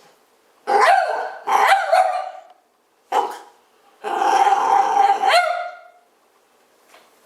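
Dog growling and barking in play: four bursts, the last and longest about two seconds.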